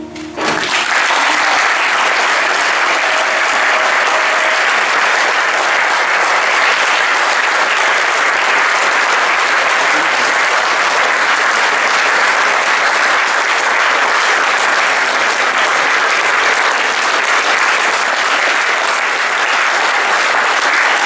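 The last acoustic guitar chord dies away about half a second in, and an audience takes up steady applause, clapping hands.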